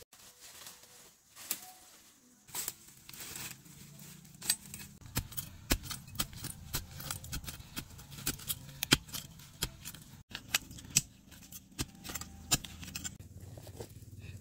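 Irregular sharp clicks and knocks, growing busier about four seconds in, over a faint low steady hum.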